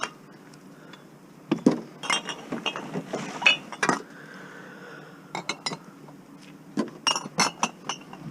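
Empty glass wine bottles clinking against each other as they are handled, in several clusters of sharp clinks.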